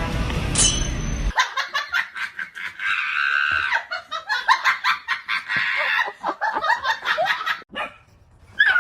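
A person laughing in rapid, high-pitched bursts, after a short stretch of music at the start. Near the end a high, wavering whine begins.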